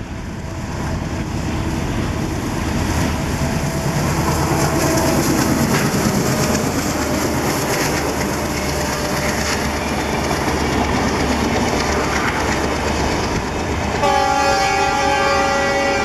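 Rebuilt ALCO WDM-3A diesel locomotive and its train passing close by: the engine running under load and the coaches' wheels clacking over the rail joints. About two seconds before the end, the locomotive's multi-note horn starts a long, steady blast.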